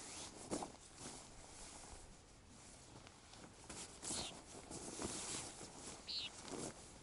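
Rustling of a nylon stuff sack and backpack gear being handled, with a few short sharper rustles about half a second in and again near the end.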